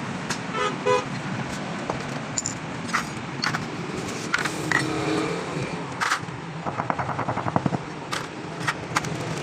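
Sharp metallic clicks and knocks of hand tools on motorcycle front-fork parts, with a quick run of rapid ticks a little past the middle, over a steady low background hum.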